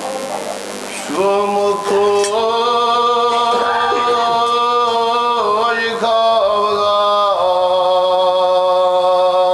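A man chanting a Kashmiri marsiya, a mourning elegy, unaccompanied. He holds a few long, steady notes, starting about a second in.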